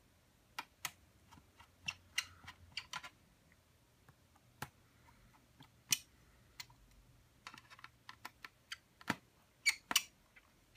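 Light, irregular clicks and ticks from a small screwdriver working the bottom-cover screws of a ThinkPad X1 Carbon laptop, with a few sharper clicks near the end.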